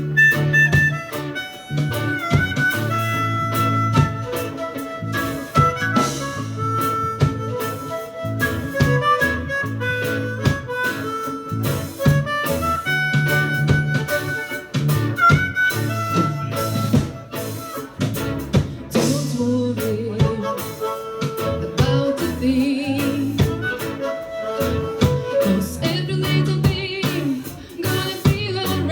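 Live reggae band playing an instrumental passage: a lead melody of held notes over a repeating bass line and drums.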